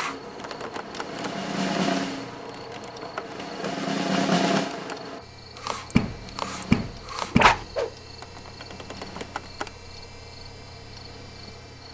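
Two soft swells of noise, then a low steady hum with three sharp thuds in quick succession about six to seven and a half seconds in.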